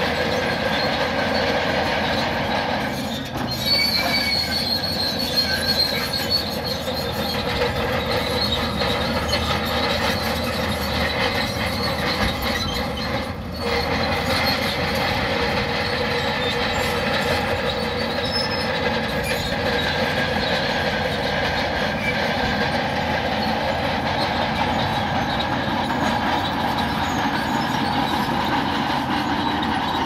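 Shantui crawler bulldozer's diesel engine and steel tracks running steadily as it pushes rock fill, with a brief high squeal about four seconds in.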